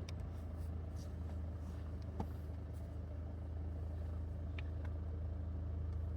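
A 4WD's engine and tyre noise heard from inside the cab as it drives along a forest track: a steady low drone, with a couple of faint ticks.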